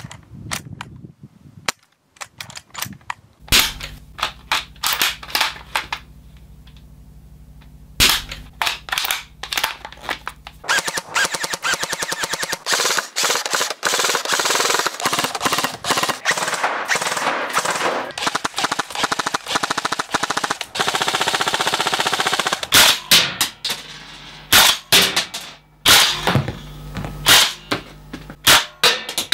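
Airsoft guns firing in a series of cuts: a few separate shots from a bolt-action Lee Enfield No.1 MK3 replica, then a long stretch of rapid full-auto fire from a SCAR-H replica. Separate, evenly spaced single shots follow near the end, from a shell-ejecting M110 replica.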